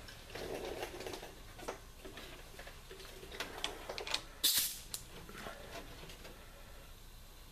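Scattered light clicks and knocks of hands at work around a compressed-air-driven model steam engine that is not yet running, with a short, sharp hiss of air about four and a half seconds in.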